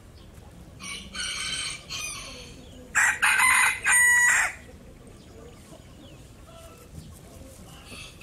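A rooster crowing: a fainter crow about a second in, then a loud, full crow about three seconds in, short-short-long.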